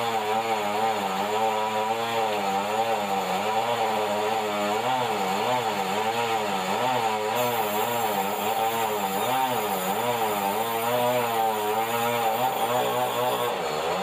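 Sawmill band saw and its drive running steadily under power, its pitch wavering up and down, as a red meranti log is fed along the roller table into the saw.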